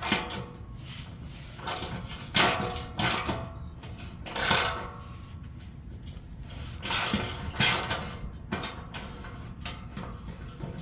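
A 3/8-inch hand ratchet with an extension backing out 12 mm hex bolts, its pawl clicking in short runs on each back-stroke.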